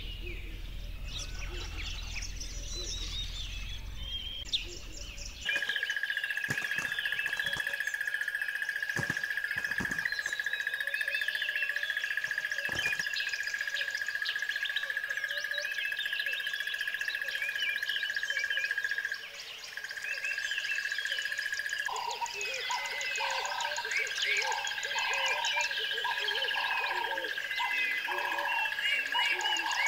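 Many birds chirping and calling over a steady high-pitched trill. About three-quarters of the way through, frogs join in with a regular croaking chorus.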